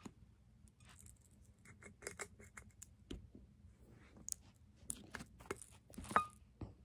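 Faint handling of a glass jar: scattered light clicks and taps of glass, with one sharper clink that rings briefly about six seconds in.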